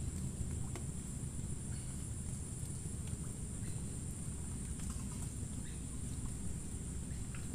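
Steady, high-pitched insect drone, with a few faint short calls scattered through it over a low, even background rumble.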